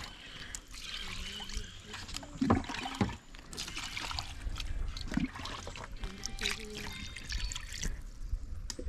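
Water trickling and splashing as cut-up duck pieces are rinsed by hand, with a few short knocks of the meat against the container.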